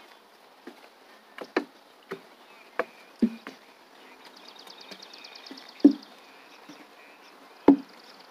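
Footsteps thudding on the planks of a wooden boardwalk, irregular, with two heavier steps near the end. A high pulsing insect trill joins in about halfway through.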